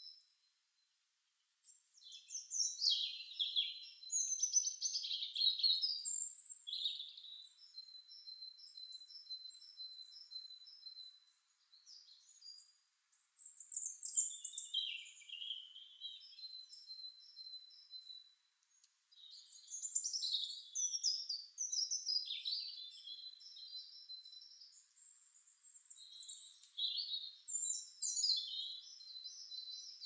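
Garden songbirds singing: bursts of quick trills and whistled phrases with pauses between, and a thin high note repeated in quick series. The sound cuts out entirely for about a second and a half just after the start.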